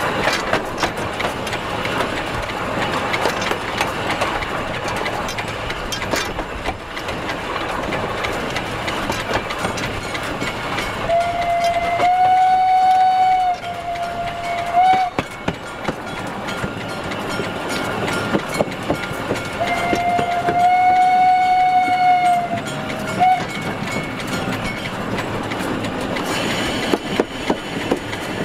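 Steam locomotive rolling slowly, its wheels and running gear making a steady clatter. Its steam whistle blows twice, each blast about four seconds long and ending in a short, slightly lower note.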